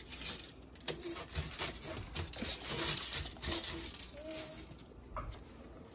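Aluminium foil crinkling and rustling as oiled potatoes are rolled in salt on a foil-lined baking sheet, with many small taps and clicks; it is busiest around the middle and dies down near the end.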